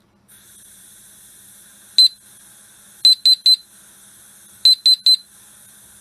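HSTMYFS plug-in natural gas detector going into alarm, sounding loud high-pitched beeps: a single beep about two seconds in, then groups of three repeating about every one and a half seconds. Under them is a steady hiss of gas from a lighter held unlit against the detector's sensor.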